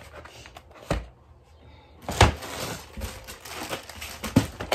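Items in their packaging being handled: a few knocks of boxes set down, the loudest about two seconds in and another near the end, with rustling of cardboard and plastic between.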